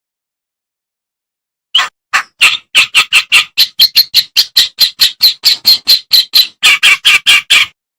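Kerak basi (clamorous reed warbler) singing a fast run of short, harsh chattering notes, about four a second, starting a couple of seconds in.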